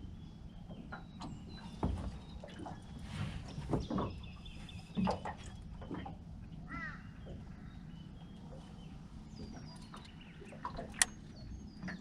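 Birds calling and chirping, among them a crow cawing, over a low steady background. There are a few light knocks and a sharp click near the end.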